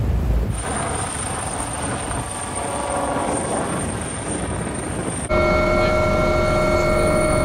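Brief low wind and sea rumble, then a helicopter flying overhead: rotor and engine noise with a thin high whine. About five seconds in it cuts to a louder, steady aircraft engine whine of several held tones.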